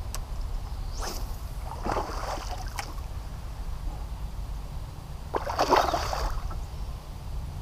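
Bass splashing at the water's surface on the line beside a small boat: a few short splashes, then a bigger splash about five and a half seconds in, over a low steady rumble.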